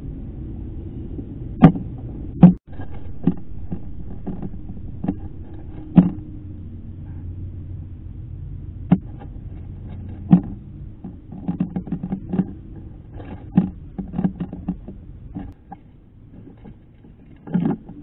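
Eastern gray squirrel feeding at a metal dish of sunflower seeds right at the microphone: irregular sharp clicks and knocks, the loudest two about two seconds in and a denser run in the second half, over a steady low rumble.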